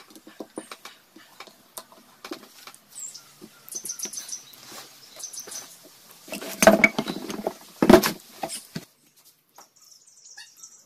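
Small metallic clicks and clinks of a T-handle socket wrench and bolts on an aluminium motorcycle-engine clutch cover as its bolts are undone, with a cluster of louder sharp knocks about six to eight seconds in.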